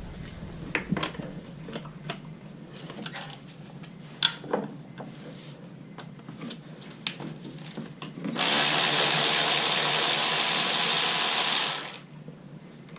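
Scattered clicks and knocks of tool handling, then about eight seconds in a power ratchet runs steadily for about three and a half seconds and stops abruptly, unscrewing a spark plug.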